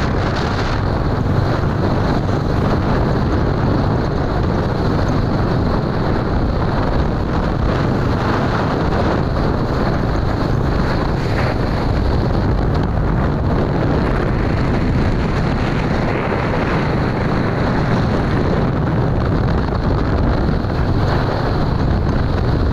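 Steady wind rushing over the microphone of a moving road vehicle, with the vehicle's engine and tyre noise running underneath.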